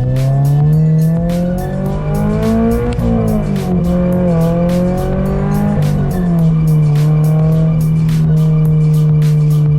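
Music with a fast steady beat over sustained, sliding synth notes.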